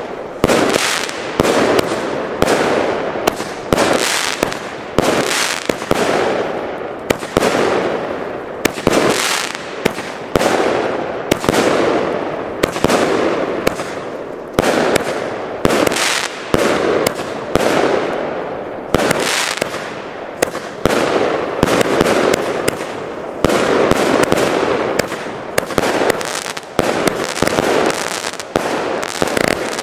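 A consumer firework battery (cake) firing shot after shot, about one to one and a half shots a second: each a sharp bang trailed by a fading crackling hiss.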